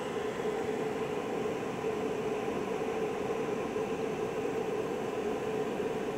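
Home-built laser projector and the small cooling fan blowing over its laser driver running during a burn: a steady whir with a wavering hum underneath.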